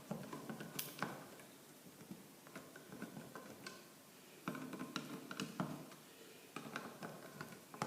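Faint scattered clicks and light knocks, with two short clusters of small handling noises in the second half.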